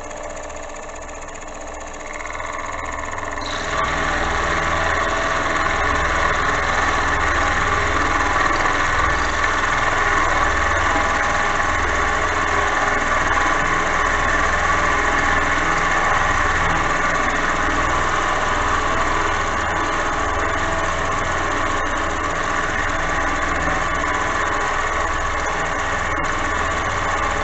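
Milling machine spindle running at about 1200 RPM with the power feed driving the table, the cutter cutting steel. The sound steps up about two and again about three and a half seconds in, then holds as a steady cutting noise over the motor hum.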